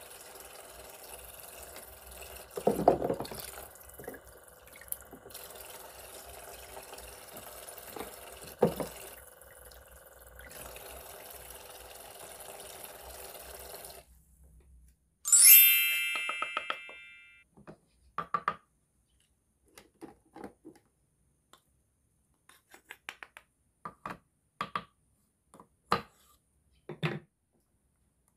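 Toy kitchen sink's faucet running a thin stream of water over its pump hum, with two clatters of plastic toy fruit pieces, and then the water stops. A bright chime rings out and fades, followed by scattered light clicks and taps of plastic toy cookware being handled.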